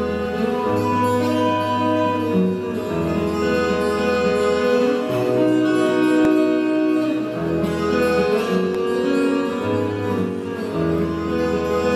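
Solo acoustic guitar played fingerstyle: a ringing melody over deep bass notes that change every two seconds or so.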